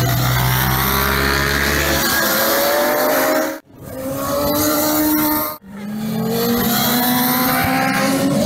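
Racing motorcycles at high revs, their engine notes climbing steadily in pitch as they accelerate through the corner and up the hill. The sound breaks off abruptly twice, about three and a half and five and a half seconds in, as one clip cuts to the next.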